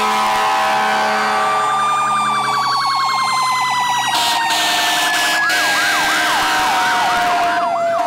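Fire engine sirens sounding as the trucks pass: one long wail that climbs slightly, then winds slowly down in pitch, and from about halfway a second siren joins with quick repeated up-and-down yelps.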